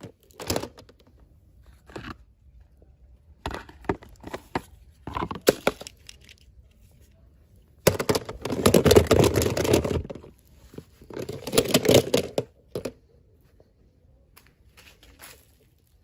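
Packaging being opened by hand: crinkling and tearing in several bursts, with short clicks and rustles between them. The longest, loudest stretch comes about eight to ten seconds in.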